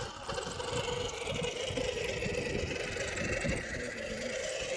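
Electric motor and gear train of a radio-controlled scale crawler truck whining steadily under throttle as it climbs a dirt slope.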